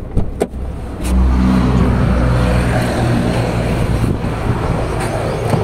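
A motor vehicle engine running. It comes in loud about a second in and then holds a low, steady note, after a few light clicks at the start.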